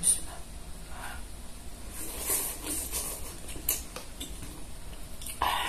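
A person slurping instant cup noodles off a plastic fork, in several hissy slurps, with the fork clicking against the cup.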